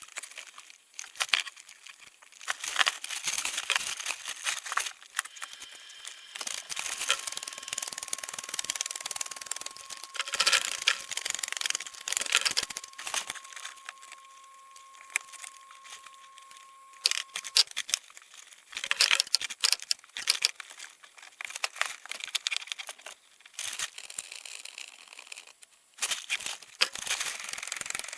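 Irregular crinkling, rustling and scraping noises with scattered sharp clicks and knocks. A faint steady high tone sounds for about ten seconds in the middle.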